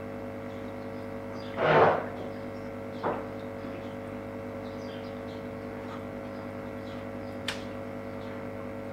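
Steady electrical hum made of several constant tones, with a brief rushing noise about two seconds in and a fainter one about a second later.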